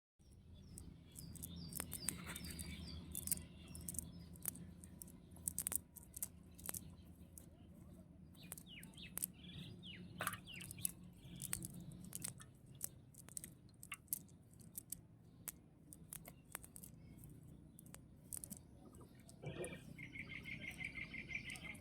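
Faint outdoor ambience with small birds chirping in short, scattered calls, ending in a quick rapid trill near the end, over a low steady hum and scattered light clicks.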